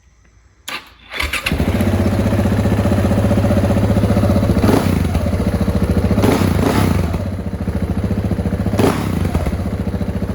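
A 2018 KTM 690 Enduro R's single-cylinder engine, fitted with a Wings aftermarket muffler, is cranked and catches about a second in. It then runs at a steady idle, with a few quick blips of the throttle.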